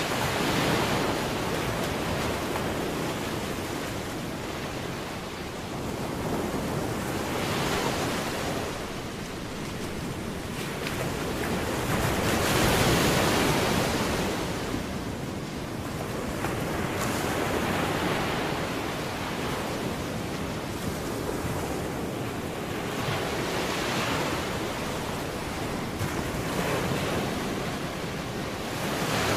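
A full-range rushing noise that swells and fades roughly every five to six seconds, like surf or wind, loudest around the middle.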